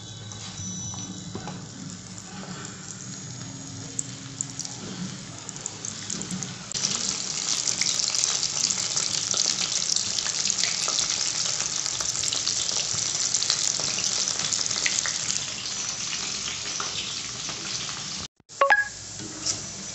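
Batter-coated soya chunks deep-frying in hot oil in a wok. A light sizzle turns to a loud, dense crackling sizzle about seven seconds in as the chunks are dropped in, then eases off and cuts out suddenly near the end.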